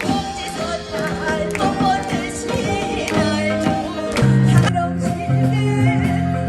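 Korean traditional gugak music: a wavering, heavily vibrato'd singing voice over plucked string instruments and sustained low notes.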